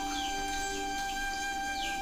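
Background music of long held steady notes, with a few short falling bird chirps over it; the music cuts off suddenly at the end.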